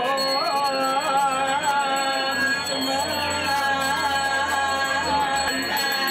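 A single voice singing a slow Balinese devotional chant, holding long notes and bending them with small ornamental turns.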